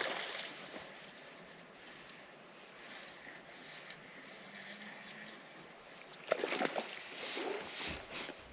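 A hooked bass splashing at the surface while being fought on rod and line: a loud splash at the start, then another cluster of splashes about six to seven and a half seconds in.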